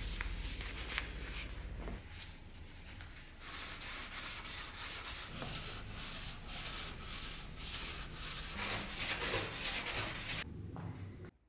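Green abrasive scouring pad scrubbed back and forth along a steel dagger blade coated with rust remover, taking off the loosened rust. The strokes start a few seconds in, come at about two a second, and cut off abruptly just before the end.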